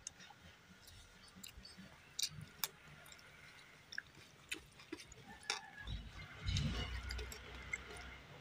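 Someone eating rice and curry by hand: quiet chewing and mouth sounds, with scattered soft clicks as fingers mix food on a steel plate. A low rumble comes in about six seconds in and lasts a second or so.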